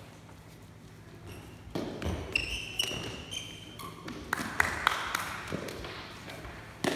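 Lábtoll-labda rally on a sports-hall floor: sharp taps of the feathered shuttlecock being kicked, footfalls and short sneaker squeaks. These start about two seconds in.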